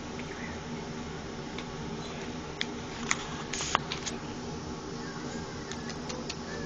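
A steady low hum with a few sharp clicks and a short rustle near the middle, then a quick run of small clicks near the end.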